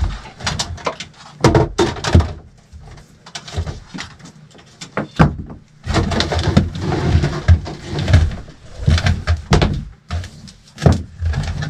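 Irregular knocks, clunks and rustling of cords and cables being gathered up off a carpeted bed platform, with a busier stretch of handling noise about six to eight seconds in.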